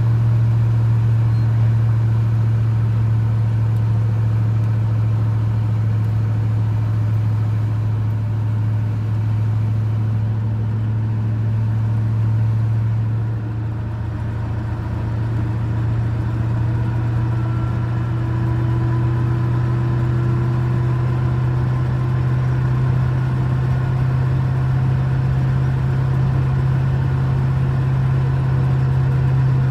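Steady low drone of a heavily loaded squarebody Chevy K30 pickup cruising on the highway, heard inside the cab: engine and road noise together. About halfway through the drone dips briefly and then settles into a slightly different note.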